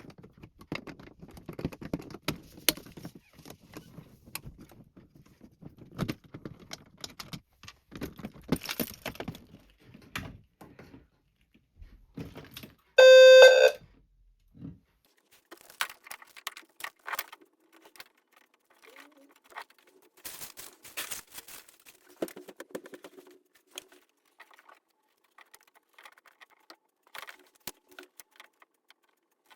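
Clicks, rattles and knocks from hands working on a fire alarm pull station and its wiring. About thirteen seconds in, a low-frequency fire alarm sounder blares one loud, steady low tone for about a second. The sounder is acting up because a terminal on its positive side is not tightened all the way.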